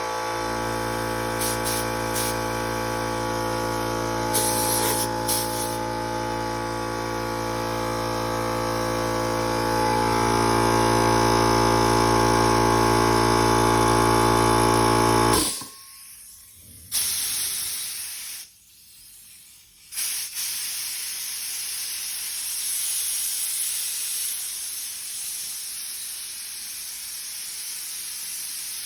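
Small Central Pneumatic electric air compressor running steadily as it builds pressure, then cutting off abruptly about halfway through, shutting off at its set pressure of about 110 PSI. Compressed air then hisses out, first in a short spell and then steadily.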